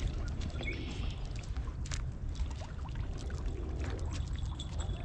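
A small hooked carp splashing at the water's surface as it is drawn into a landing net, in scattered short splashes and drips over a steady low rumble.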